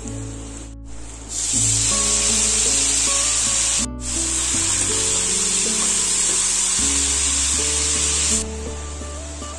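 Food frying in hot oil in a metal kadai: loud sizzling that starts about a second in and stops shortly before the end, over background music.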